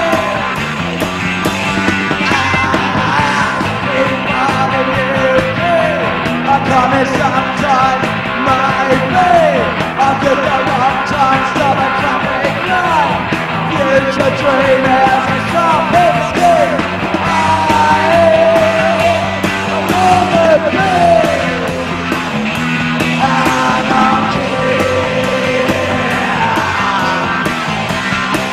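Punk rock band playing live: distorted electric guitar, bass guitar and a fast, driving drum beat, with a singer yelling and sneering the vocals over them.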